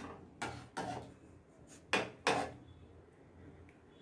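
Metal slotted spoon knocking and scraping against a pan and a plate as boiled dumplings are lifted out of the water: five short clatters in the first two and a half seconds, the loudest two close together about two seconds in.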